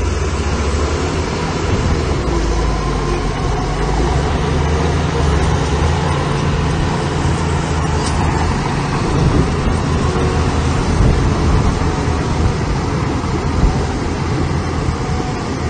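Heavy diesel construction machinery engine running steadily under load, a deep continuous rumble with a noisy upper haze.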